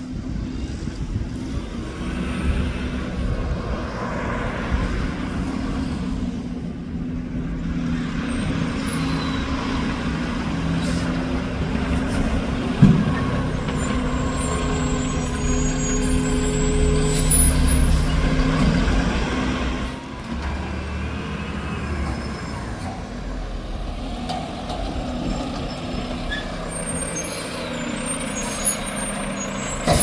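Diesel engine of a Mack front-loader garbage truck running as the truck pulls out and drives past. The engine grows louder as it nears, then drops off suddenly about two-thirds of the way through. There is a single sharp knock partway through.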